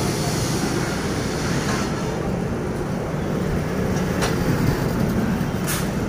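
Steady low mechanical rumble with a short click about four seconds in and another near the end.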